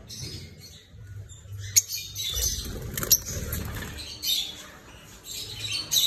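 Caged lovebirds giving short, high chirps here and there, with two sharp clicks under two seconds and about three seconds in, over a low rumble.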